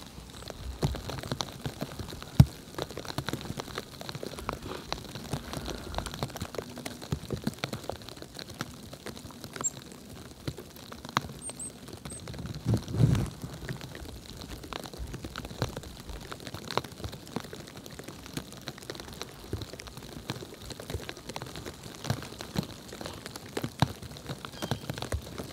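Falling snow pattering on surfaces in a snowstorm, a steady spatter of irregular light ticks and taps. A brief low rumble comes about halfway through.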